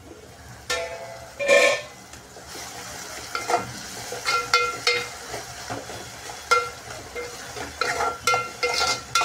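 A steel pot lid is lifted off with a couple of ringing metallic clanks about a second in. Then a spatula stirs and scrapes chopped onion and tomato frying in oil in a metal pot, ringing against the pot with each stroke, over a steady sizzle.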